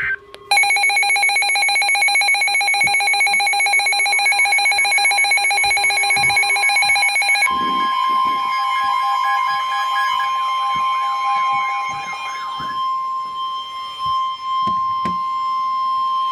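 Weather radio emergency alert tones announcing a severe thunderstorm warning. A harsh, rapidly pulsing alarm sounds for about seven seconds. Then the NOAA Weather Radio 1050 Hz warning alarm tone takes over as one steady tone for about nine seconds, with the pulsing alarm fading out under it.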